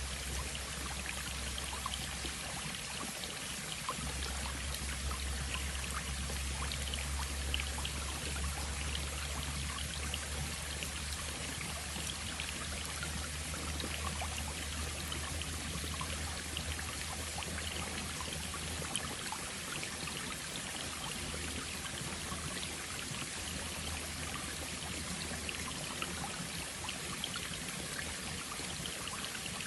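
Small forest stream running over stones: a steady babbling rush dotted with many small splashes and drips. A low rumble sits underneath through much of the first half.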